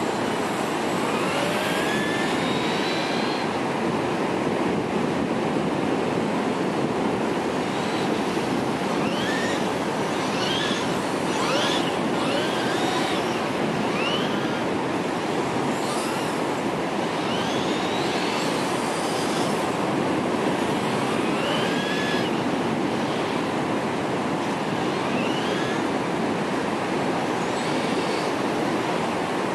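Steady wash of breaking surf, over which the brushless motor of a Traxxas E-Maxx RC monster truck on 6S whines up in short rising bursts, a dozen or so times, as the truck accelerates across the sand.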